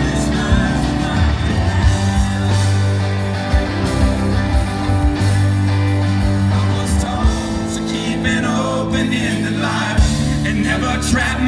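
A live band playing banjo, electric guitar, bass and drum kit over a theatre PA, with singing.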